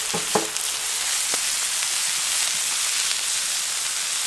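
Whole sardines, sea bream and prawns sizzling steadily in oil on a hot steel fire plate, with a few short clicks in the first second and a half.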